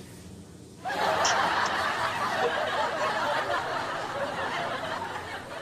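A man's stifled, breathy laughter, starting suddenly about a second in and slowly trailing off.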